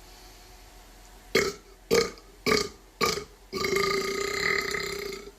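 A man burping: four short burps about half a second apart, then one long, steady burp lasting nearly two seconds.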